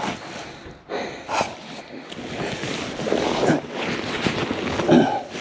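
Rustling and scraping of a person crawling through a crawl space, with clothing and handling noise on the camera's microphone.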